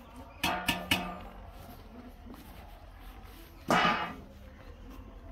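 Metal cooking pot clanking on a clay wood-fired stove: three quick ringing knocks about half a second in, then one louder clatter about three and a half seconds in.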